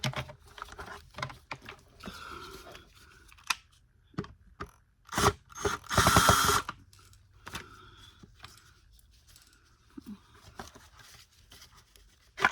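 Clicks, taps and scrapes of hands and tools working on the plastic housing and parts of a Bissell Cleanview upright vacuum during disassembly, with a louder scrape lasting under a second about six seconds in.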